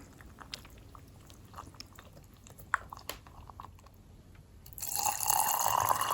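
Faint clicks and taps of utensils, then, about five seconds in, water being poured into the glutinous rice flour batter, with a slight rising tone.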